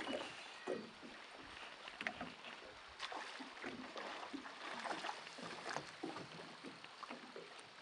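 Small waves lapping and slapping against a boat hull, with irregular little splashes.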